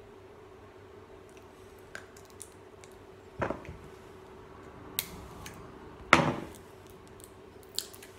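Small plastic e-liquid bottle being handled and its childproof cap twisted open: a scatter of light clicks and knocks, the two loudest about three and a half and six seconds in, over a faint steady hum.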